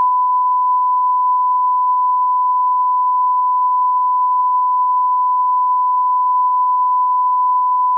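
A radio station's sign-off test tone: one steady, unbroken pitch, marking the end of the broadcast day.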